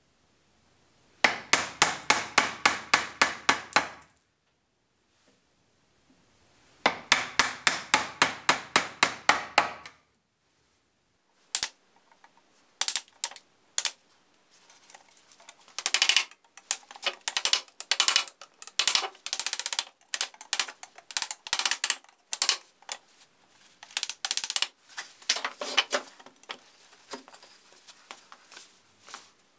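A steel chisel struck rapidly with a hammer, driven into the end grain of oak stool legs: two runs of quick, even blows, about four a second, each lasting about three seconds. After that come irregular lighter knocks and clicks of chisel work and handling.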